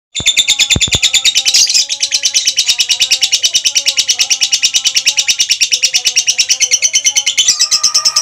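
Female lovebird's ngekek: a long, unbroken, rapid chattering trill of sharp notes, more than ten a second.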